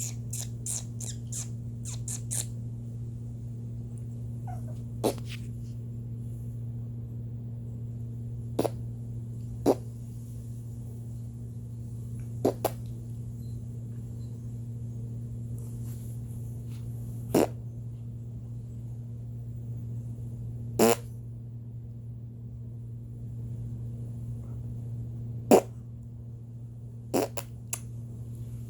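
Short fart sound effects played over and over at uneven intervals, a quick run of them at first and then one every few seconds, over a steady low hum.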